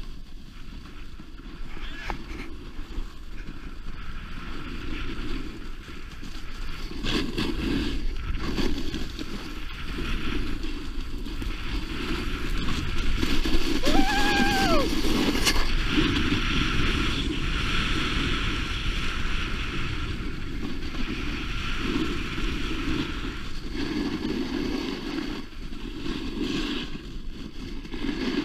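Snowboard sliding and carving over packed snow, a steady scraping hiss that swells and eases with the turns, with wind on the microphone. About halfway through, a short tone rises and falls once.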